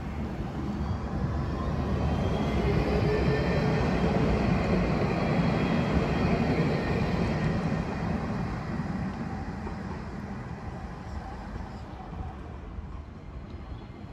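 Alstom Citadis 305 tram passing on the track: its running noise, with a faint high whine, swells to a peak about five seconds in and then fades away.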